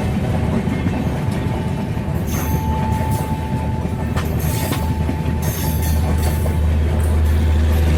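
Train running along the track: a dense low rumble, with a thin steady whine that comes and goes through the middle and a few short high-pitched hisses. The low rumble grows stronger over the last couple of seconds.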